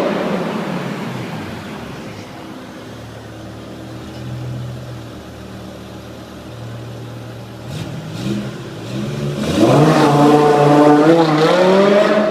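BMW M5 engine revving in place: it falls from a high rev to a steady idle, gets two short throttle blips about eight seconds in, then is revved up and held high, the pitch wavering, near the end.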